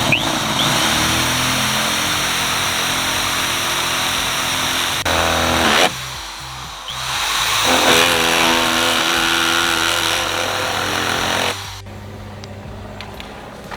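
Electric drill with a 1/2 inch bit running at speed, boring through the plastic inner door panel in two spells: it eases off briefly a little before the middle, runs again, then stops about three seconds before the end.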